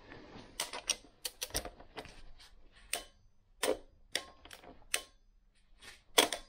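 A torque wrench clicking as it is set to 35 newton-metres for the oil filter housing cap: about a dozen sharp, irregularly spaced clicks, the loudest near the end.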